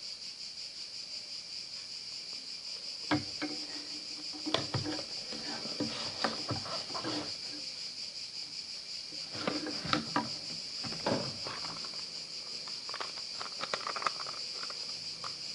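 Scattered clicks, knocks and rustles of hands handling and trying to open a packaged box. Under them runs a steady high-pitched chirring of crickets.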